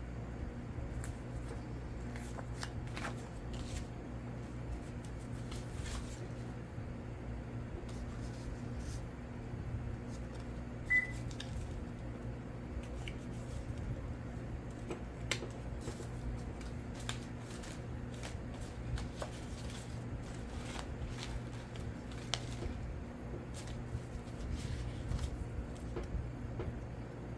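Paper scraps and cards being handled on a cloth-covered table: intermittent soft rustles and small taps, with one sharper click about eleven seconds in. A steady low hum runs underneath.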